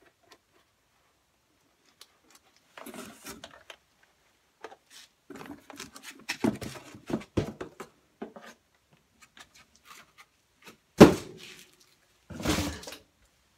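Hands working on a generator that is not running: scattered knocks, clicks and scrapes of parts and tools being handled, with a brief rustle near the start and another near the end, and one loud thunk about eleven seconds in.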